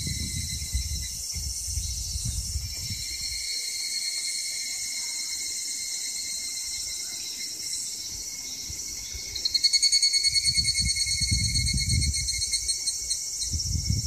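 Evening cicadas (higurashi) calling in a chorus of high, rapidly pulsing trills. A louder, nearer call starts about nine and a half seconds in. A low rumble sits under the calls in the first few seconds and again near the end.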